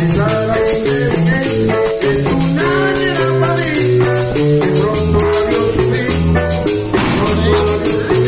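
Latin dance music played live, with timbales and a metal shaker keeping a fast, even rhythm over a bass line and sustained pitched notes.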